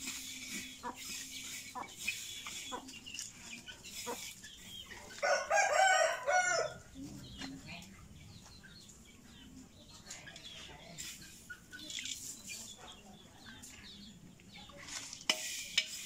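A rooster crows once, about five seconds in, the loudest sound here. Around it, light scrapes and clicks of a metal spatula stirring rice grains in a wok.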